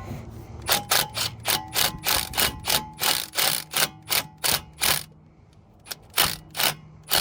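Impact driver with a Torx bit fired in short bursts, a fast run of sharp clicking rattles, driving the brake rotor's retaining screw until snug. The bursts pause for about a second past the middle, then come twice more.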